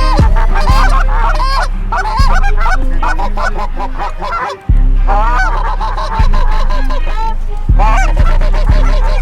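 Flock of Canada geese honking in many overlapping calls, over background hip-hop music with a deep, sustained bass and a hard beat.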